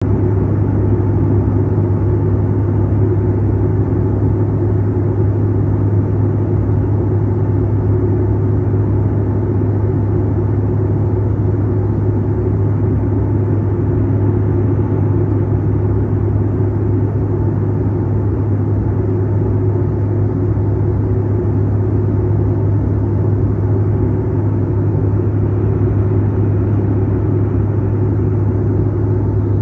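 Jet airliner cabin noise in cruise flight: a steady low drone of engines and airflow heard through the fuselage, with no change.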